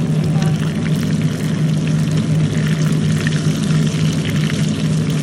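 Cornstarch-coated shrimp deep-frying in a small pot of oil, bubbling and crackling steadily, over a steady low hum.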